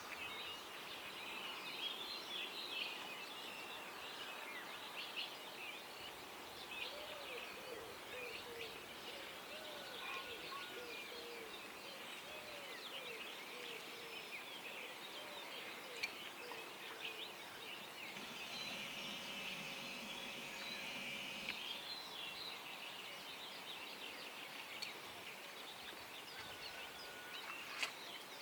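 Dawn chorus of many birds chirping and calling over one another, with a run of lower, repeated calls in the first half.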